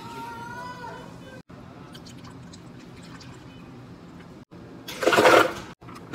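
Water poured into a plastic Blendtec commercial blender jar, its pitch rising as the jar fills. About five seconds in, ice cubes are dropped into the jar in a short, loud clatter, the loudest sound here.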